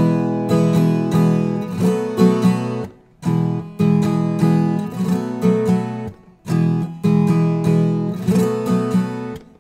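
Viola caipira, the ten-string Brazilian folk guitar, played three times through the cururu 'virada' phrase: a strummed and finger-picked question-and-answer figure in E. Each pass ends with the strings muted, so the sound cuts off suddenly.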